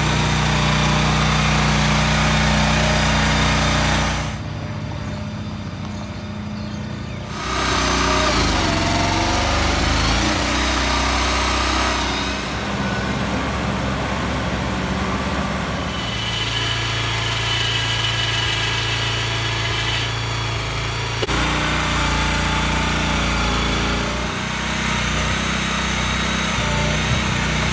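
Small engines running steadily, in a series of short edited cuts: the engine of a Mule shed mover pushing a shed, and in the middle a New Holland compact tractor's engine.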